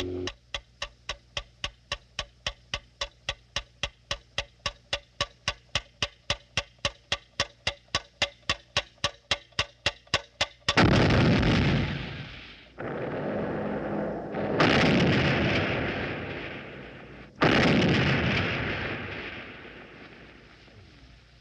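A rapid, even ticking, about four ticks a second and quickening slightly, which the car's passengers take for a turn signal damaged in a collision. About ten seconds in it gives way to a loud explosion, followed by two more blasts a few seconds apart, each dying away slowly as the car blows up.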